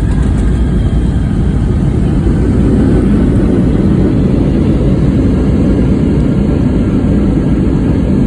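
Boeing 757 heard from inside the cabin during landing: a loud, steady, low rumble of the jet engines and airframe that swells slightly midway.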